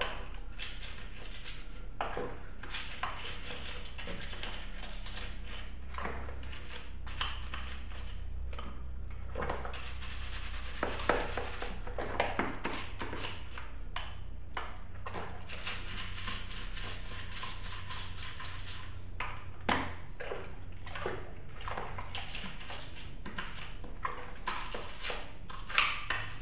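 A brush scrubbing a chainsaw's wet chain-brake and clutch-cover assembly, in runs of quick bristly strokes that stop and start every second or two, with occasional clicks and knocks of the part being handled.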